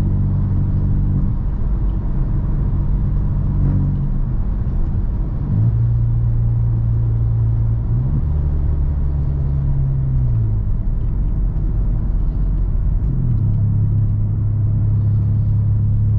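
Volkswagen T-Cross's 1.0 TSI three-cylinder turbo engine, running with the exhaust open straight after the catalytic converter, heard from inside the cabin: a loud, low drone at light throttle below 1500 RPM. Its pitch steps up and down a few times as the car cruises, and the drone is strong enough to make things on the dashboard vibrate.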